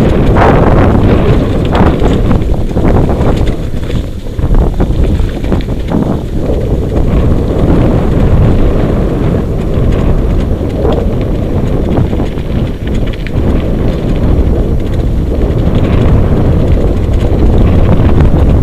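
Heavy wind buffeting on the microphone over the steady rumble of a husky-drawn racing rig rolling fast along a dirt trail.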